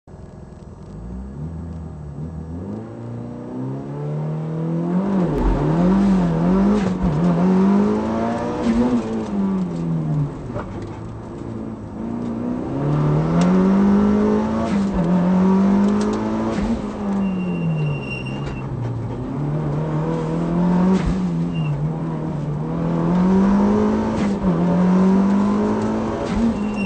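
Mitsubishi Lancer Evolution rally car's turbocharged four-cylinder engine, heard from inside the stripped cabin, driven hard on a stage. The revs climb through each gear and fall at every shift and under braking, rising and falling over and over.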